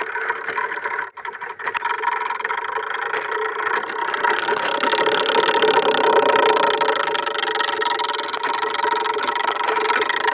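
Plastic-bottle 'exhaust' fitted to a bicycle, buzzing steadily as the bicycle is ridden, a motorcycle-like sound. It drops out briefly about a second in, then grows louder from about four seconds in.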